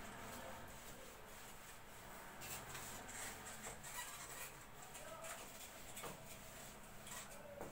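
Faint, uneven rubbing strokes of a whiteboard being wiped clean.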